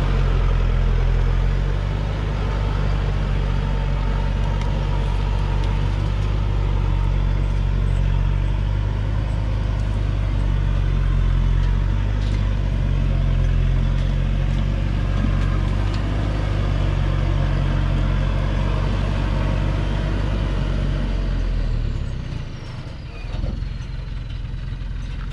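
Thaco Forland truck's diesel engine pulling hard and steadily as the log-laden truck crawls up a steep dirt track. About three seconds before the end the engine eases off and its note drops.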